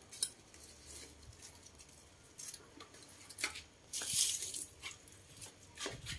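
Woven plastic sack rustling and wire-mesh rat traps knocking lightly as the traps are packed into it. The noises come in a few scattered crinkles and small knocks, the loudest rustle about four seconds in.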